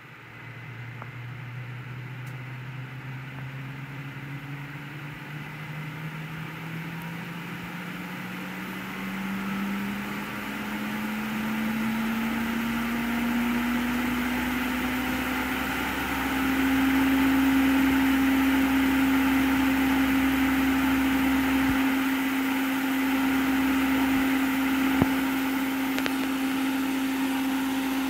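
Beckman Coulter Allegra X-22 benchtop centrifuge with a swinging-bucket rotor spinning up. Its motor whine starts just after the beginning and climbs steadily in pitch and loudness for about 16 seconds, then holds one steady pitch once the rotor reaches its set speed of 4,000 rpm.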